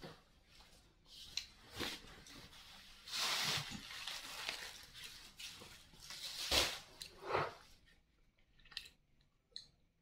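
A thin plastic bag being handled, rustling and crinkling in several bursts, with a couple of short clicks near the end.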